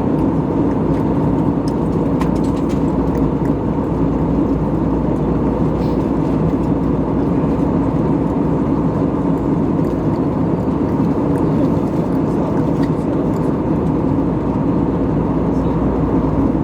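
Steady drone of an Airbus A320neo's engines and rushing air, heard inside the passenger cabin in flight, with a thin steady whine on top.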